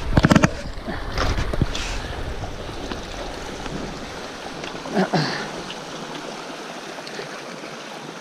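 Small mountain stream running and trickling over rocks in a steady rush. A burst of knocks and rustling comes near the start, and a short louder sound about five seconds in.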